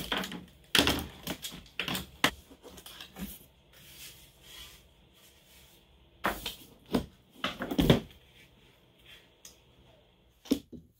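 Thin wooden strips clattering and knocking together as they are handled and flexed: irregular sharp clicks and knocks, busiest about a second in and again from about six to eight seconds in.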